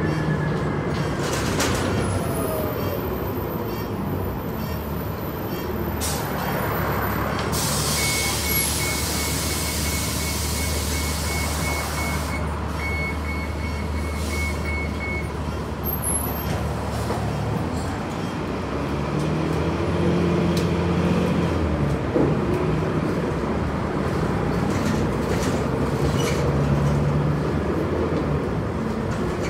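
Inside a city transit bus: the engine runs steadily, a burst of air hiss comes about eight seconds in, then a run of high, evenly spaced beeps lasts about seven seconds. Around twenty seconds in the steady low hum stops and the engine note rises.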